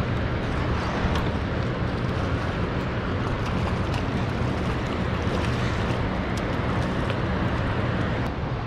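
Steady low hum of a boat's motor running, with wind rushing across the microphone.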